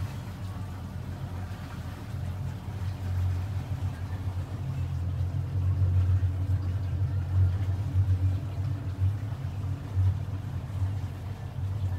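Outboard engine of a Jeanneau NC795 cabin boat running underway, a steady low rumble with a light rushing of wind and water. It grows a little louder after a few seconds.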